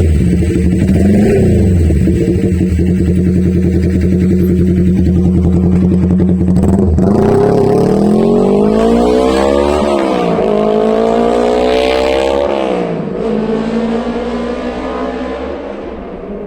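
Yamaha XS250 parallel-twin motorcycle running with its silencers removed, loud through open pipes: it idles with a quick blip of the throttle about a second in, then after about seven seconds pulls away, revving up, dropping in pitch at a gear change, and revving up again. After a second shift it settles lower and fades as the bike moves off.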